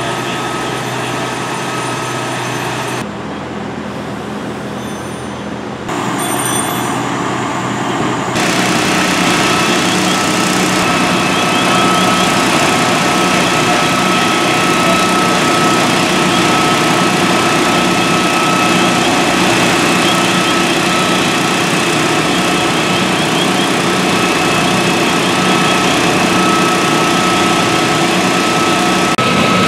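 Fire engine diesel engines running steadily while driving their pumps to supply the hose lines. The sound shifts abruptly a few times in the first eight seconds, then holds steady.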